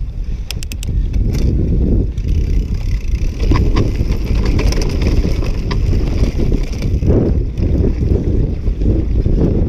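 Mountain bike riding fast down a dirt and rocky trail: heavy wind buffeting on the microphone over the rumble of the tyres and the rattle of the bike, with scattered sharp clicks and knocks over the rough ground.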